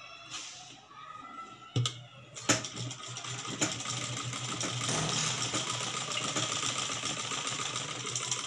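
Domestic sewing machine stitching. A few sharp clicks come first; then, from about two and a half seconds in, the machine runs steadily with a fast, continuous needle clatter.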